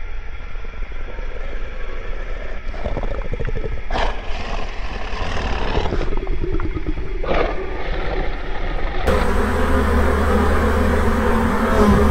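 Low steady rumble of sound-design ambience. About nine seconds in, a much louder noisy rumble starts suddenly.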